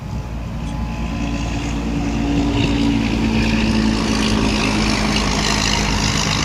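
A motor vehicle passing close by, growing louder over the first two to three seconds and then holding steady, with a low engine hum whose pitch drops slightly about three seconds in.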